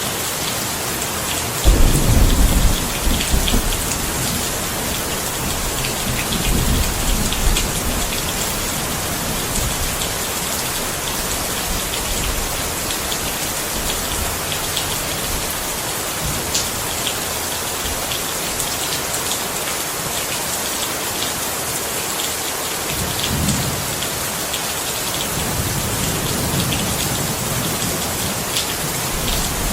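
Steady rain falling, an even hiss throughout, with thunder rumbling underneath: a sudden loud rumble about two seconds in that dies away over a couple of seconds, then weaker rolls, and more rumbling building again near the end.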